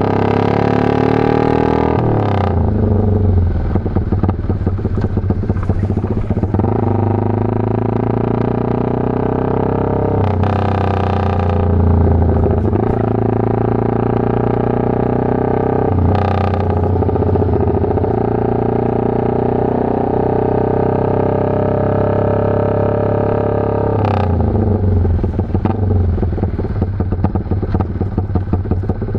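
Yamaha FZ150i (Vixion) 150 cc single-cylinder four-stroke engine running loud through an aftermarket GP racing exhaust while the bike is ridden. The exhaust note rises and falls with the throttle, with sudden changes in pitch about four times, typical of gear changes.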